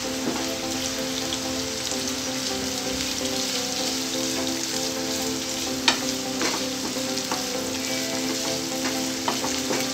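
Sliced onions and curry leaves sizzling in hot oil in a non-stick frying pan while a wooden spatula stirs them, with a few sharp clicks, the loudest about six seconds in.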